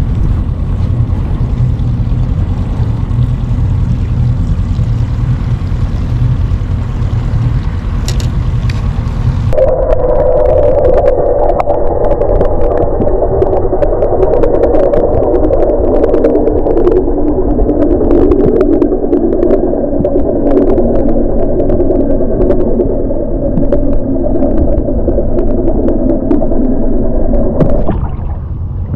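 A steady low rumble and wind noise on the boat. About ten seconds in, the action camera goes underwater and the sound changes abruptly to a dense, muffled underwater rush with many faint ticks. It cuts off near the end as the camera comes back out of the water.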